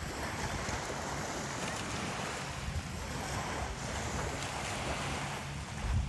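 Sea surf washing steadily onto the beach, with wind rumbling on the microphone.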